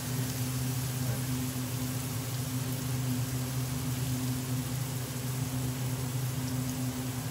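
Steady low mechanical hum of kitchen machinery, unchanging throughout, with a faint even hiss above it.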